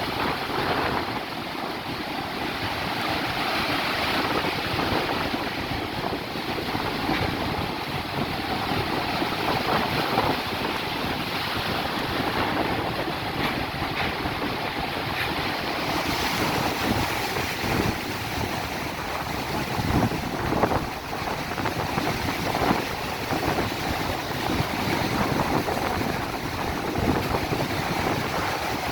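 Strong storm wind buffeting the microphone over heavy surf breaking, a loud, dense rushing that swells and eases with the gusts.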